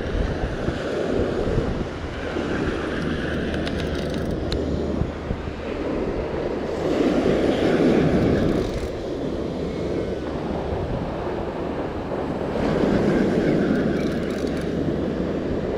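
Wind buffeting the microphone over breaking surf, the wash of the waves swelling up and fading twice.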